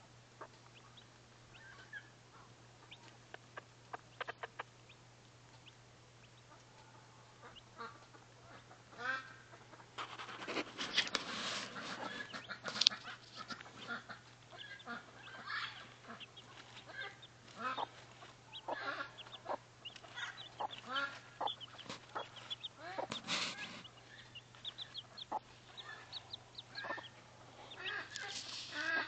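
Mother hen clucking to her chicks while they peep with short, high calls. The calls are sparse at first and become busy and steady from about ten seconds in.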